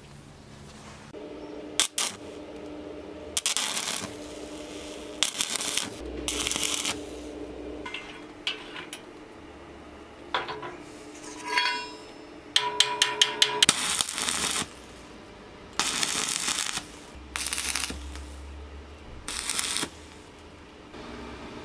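A series of short bursts of arc-welding crackle, each lasting about a second, as a steel rod is tack-welded onto a pincer handle clamped in a bench vise. Between the bursts come metal clicks and clinks, including a fast run of clicks midway.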